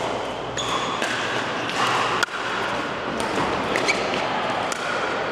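Pickleball paddles hitting the ball: about five sharp pops at irregular intervals, the loudest about two seconds in, over a steady background din.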